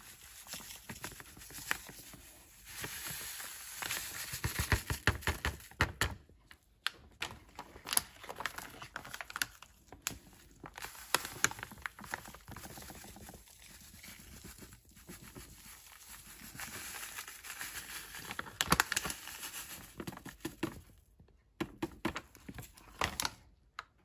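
Plastic seasoning packet crinkling and rustling as it is handled and shaken out over the pot, in uneven spells with many sharp crackles, stopping shortly before the end.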